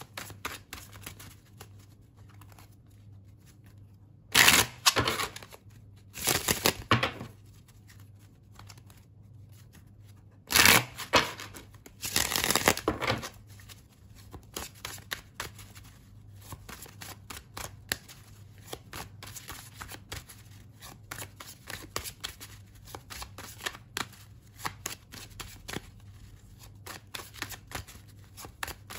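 A tarot deck shuffled overhand by hand: a steady patter of cards sliding and flicking against each other, with four louder bursts of card noise at about four and a half, six and a half, eleven and twelve and a half seconds in.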